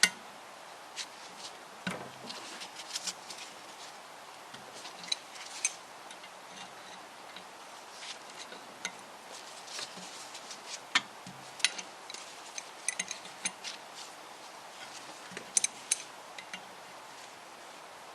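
Light metallic clicks and clinks at irregular intervals from hand tools and small steel parts being handled on a Classic Mini engine block during strip-down, with one sharper knock right at the start.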